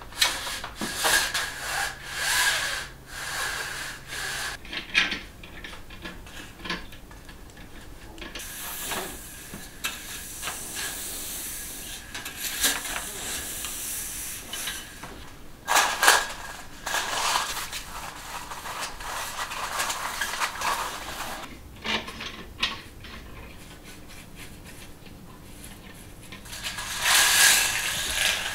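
Window-blind slats being dusted with a fluffy duster and wiped with a cloth: irregular brushing and rubbing noises with scattered light clicks of the slats.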